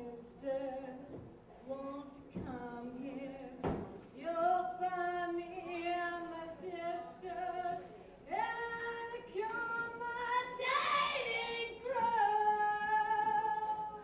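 A woman singing solo into a microphone, unaccompanied, moving between notes and holding long notes near the end.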